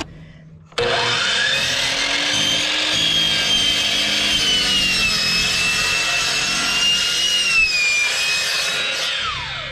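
DeWalt sliding compound miter saw starting up about a second in, its motor whine climbing as the blade spins up, then cutting through a wooden board with the pitch sagging slightly under load, and winding down near the end.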